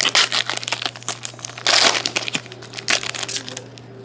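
A foil trading-card pack wrapper crinkling as it is torn open by hand, with the longest, loudest tear about two seconds in, then softer scattered clicks of handling.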